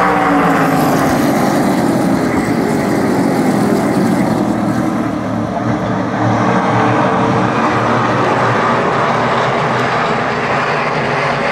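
A pack of SRX stock cars racing at speed, their engines dropping in pitch as the field sweeps past in the first few seconds, then a steady drone of engines as it runs on around the oval.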